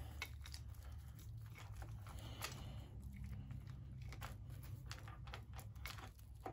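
Faint metallic clinks and scrapes as the double-row timing chain and its cam and crank sprockets on a 6.5 L turbo diesel are worked off by hand, with a few sharper clicks about two and a half seconds in and near the end.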